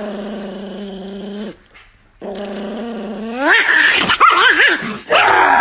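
Small chihuahua growling steadily in two stretches, then breaking into loud yelping cries that swoop up and down in pitch for the last two seconds, ending in a short harsh burst.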